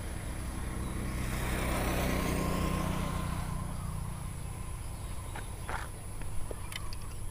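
A motor vehicle passes, its engine and tyre noise swelling to a peak about two and a half seconds in and fading away by about four seconds. A few faint ticks follow near the end.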